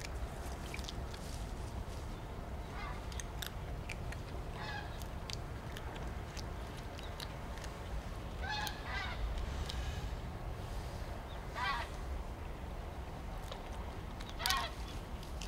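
A raccoon dog chews on a scrap of food, making scattered soft clicks. About six short honking calls sound a few seconds apart over a steady low rumble.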